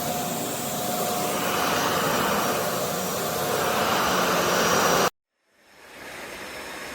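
Shark ZD201 upright vacuum running with a steady whine, cutting off suddenly about five seconds in; a faint steady hiss follows.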